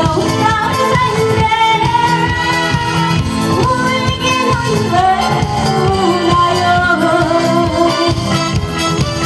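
A singer performing a pop song over instrumental accompaniment with a steady beat, the vocal holding long notes in the second half.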